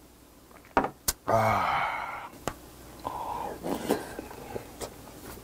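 A man lets out a loud, drawn-out vocal 'ahh' just after knocking back a shot of soju, falling in pitch over about a second. It comes after a couple of sharp clicks from the glass or his lips. Softer mouth and spoon noises of eating follow.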